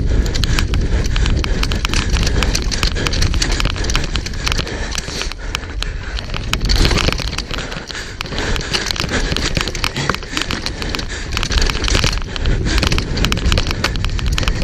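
Downhill mountain bike running fast over a rocky dirt trail: tyres crunching over dirt and stones while the chain and frame rattle in dense, irregular clicks, with wind rumbling on the camera microphone.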